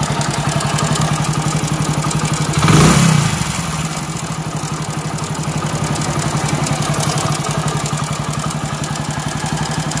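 Hero Splendor motorcycle's single-cylinder four-stroke engine idling with a lot of mechanical noise, blipped briefly about three seconds in. The noise comes from the timing (cam) chain, which needs replacing.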